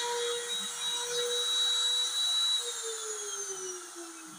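Trim-router spindle of a homemade CNC router whining at a steady high pitch as it cuts into an MDF panel. About two and a half seconds in, the pitch falls steadily and the sound fades as the motor winds down.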